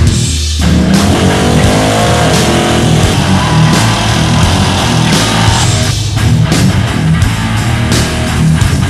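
Loud rock music with electric guitar, steady throughout.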